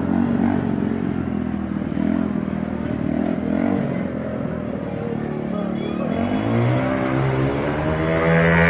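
Go-kart's Bajaj motorcycle engine running as the kart drives, its pitch rising steadily over the last few seconds as it accelerates.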